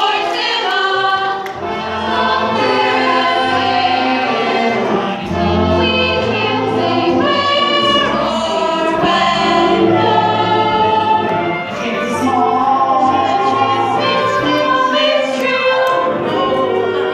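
Music with a choir singing sustained chords over a bass line.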